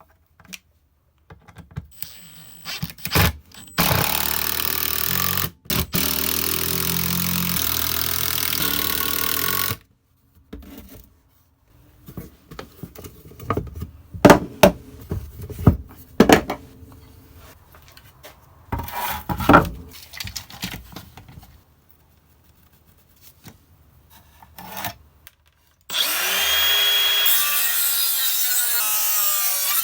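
A power tool cutting wood in two long steady runs, one of about six seconds and one of about four near the end, with knocks and clatters of wood being handled in between.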